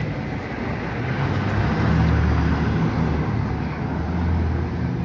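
Road traffic on a busy city avenue: vehicles passing, a steady hiss of tyres and engine rumble that swells as cars go by, loudest about two seconds in.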